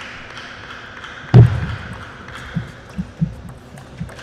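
A loud thud about a second and a half in as the serve is played, then a table tennis rally: the ball knocking off the table and the bats in a quick run of hits, two or three a second.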